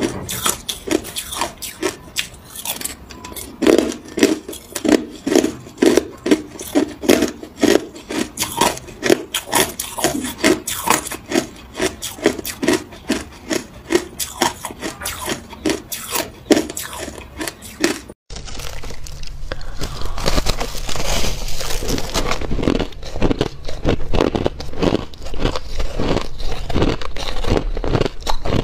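Hard ice cubes crunched between the teeth: rapid, regular crunching at about three bites a second. About two-thirds through there is a brief break, then denser crunching of a different block of ice.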